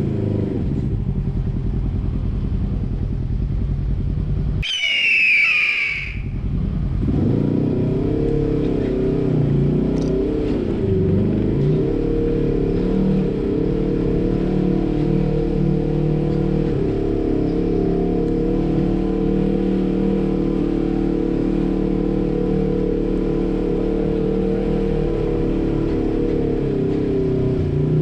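Polaris RZR side-by-side engine running at low, varying revs while crawling over rocks. About five seconds in, the engine sound drops out for about a second and a brief high, wavering squeal is heard.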